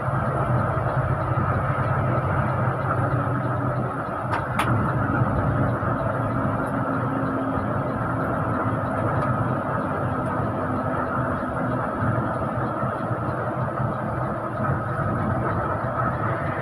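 Steady engine and road noise of a bus on the move, with one short click about four and a half seconds in.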